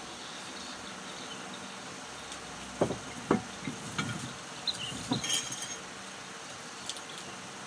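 Plates and dishes clinking and knocking against each other several times as food is taken from them, the loudest knocks about three seconds in, over a steady background hiss.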